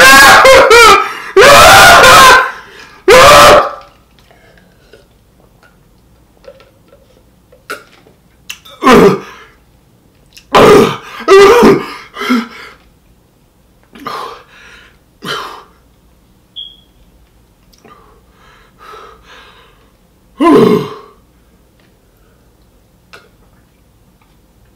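A man crying out in loud, strained wails from the burn of extremely hot fried chicken over the first few seconds, then making short groans, gasps and throat-clearing noises every few seconds.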